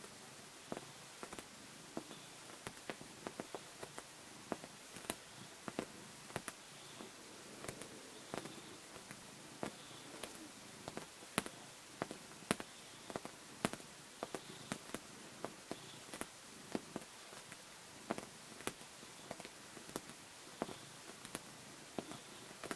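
Siamese cat suckling and kneading a fleece blanket ('smurgling'): a run of irregular soft clicks and smacks, a few each second and uneven in strength, over a faint steady hiss.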